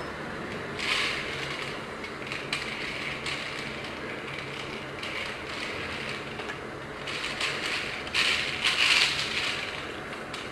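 A small plastic alarm clock being handled: scattered clicks and short rustling scrapes, busiest near the end.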